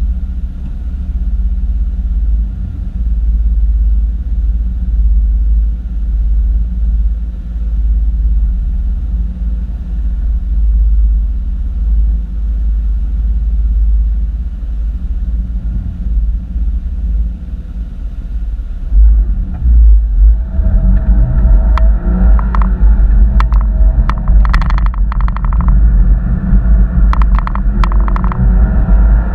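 2013 Porsche Boxster driving, heard as a heavy low rumble. The rumble gets louder and fuller about two-thirds through, and a run of sharp clicks follows near the end.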